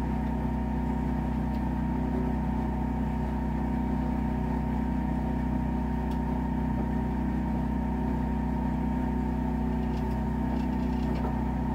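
Steady mechanical hum of a running electric motor, even and unchanging, with a few faint clicks.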